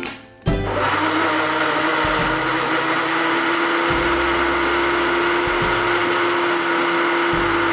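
Singer countertop blender's motor switched on about half a second in and running steadily at speed with a high whine, blending frozen banana, strawberries, yogurt and milk into a smoothie.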